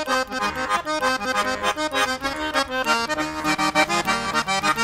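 Instrumental background music playing quick, short notes over a steady low tone.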